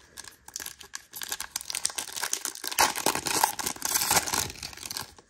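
Foil wrapper of a trading card pack being torn open and crinkled by hand: a continuous crackling rustle that stops shortly before the end.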